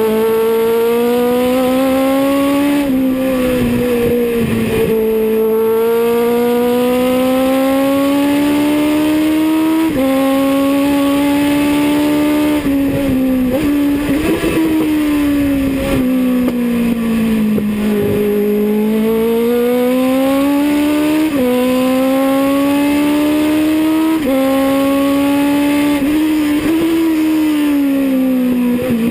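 Legends race car's Yamaha four-cylinder motorcycle engine at racing speed, heard from inside the cabin. The revs climb and fall with the track, with sudden drops in pitch at several upshifts and one jump up at a downshift about ten seconds in.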